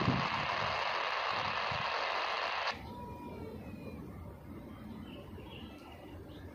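Hissing static from a railway radio receiver, cutting off sharply nearly three seconds in.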